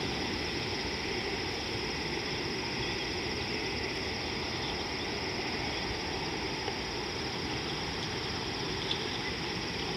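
Steady outdoor background noise: a constant high hiss over a low rumble, with a faint tick or two near the end.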